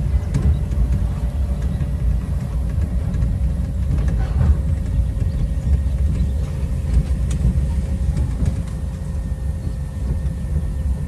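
Monorail car running along its elevated track, heard from on board: a steady low rumble with a faint constant whine and a few light clicks.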